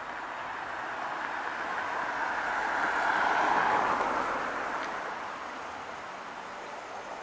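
A road vehicle passing by: a rushing noise that swells to a peak about three to four seconds in, then fades away.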